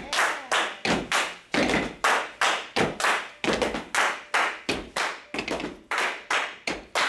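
Group of men stomping their feet and clapping their hands in a marching step routine: a steady rhythm of sharp claps and heavier stomps, about three hits a second.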